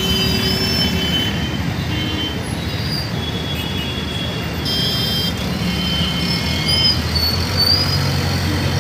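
Mixed road traffic crossing a level crossing: auto-rickshaw and motorcycle engines running, with many short horn toots.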